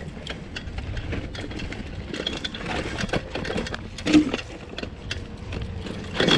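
Bicycle ridden over a dirt trail: tyres rumbling with the bike rattling and clicking over rough ground. There are louder knocks about four seconds in and near the end.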